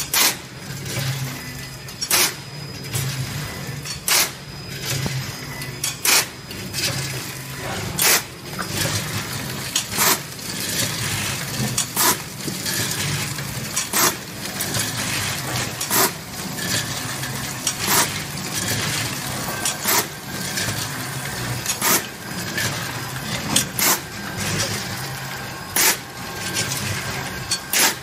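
Automatic vertical popcorn packing machine running: a steady motor hum with a sharp clack about every two seconds, once per bag cycle, and lighter clicks from the mechanism in between.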